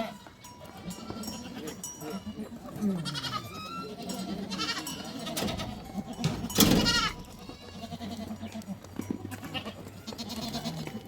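Goats bleating, several separate calls with one loud call about two-thirds of the way through.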